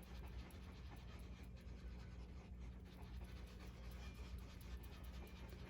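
Faint scratching and rubbing on cowhide Torah parchment while a loosened, glued-on tab is worked at, over a low steady hum.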